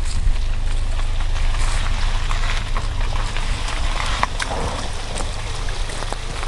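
Car moving slowly, a steady low rumble with scattered short knocks and clicks.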